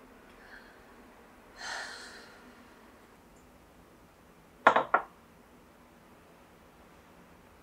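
A soft breathy sigh, then a drinking glass set down on a table with two or three quick clinks, the loudest sound here. Quiet room tone between.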